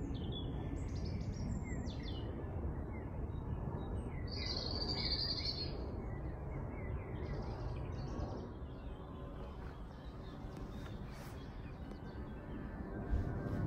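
Small songbirds chirping and singing, with a brief high trill about four seconds in, the calls thinning out after the first half, over a steady low rumble of outdoor noise. A single soft knock near the end.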